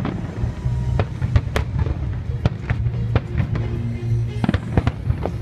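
Fireworks bursting in a rapid, irregular series of sharp bangs, with music playing.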